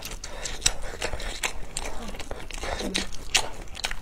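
Close-miked chewing of a mouthful of grilled sausage: wet mouth clicks and smacks at an uneven pace, with two faint short hums in the middle.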